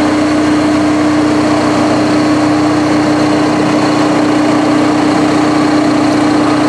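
Mobile crane's diesel engine running steadily while it hoists a prefabricated roof section, a constant even hum with no change in pitch.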